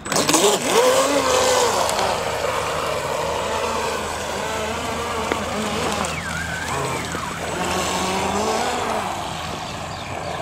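Motorboat engine throttled up suddenly and running hard, its pitch rising and wavering as the boat gets under way, over a steady rush of water.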